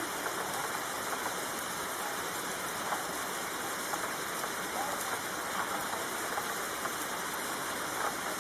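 Steady rain falling, an even hiss with scattered louder drop ticks.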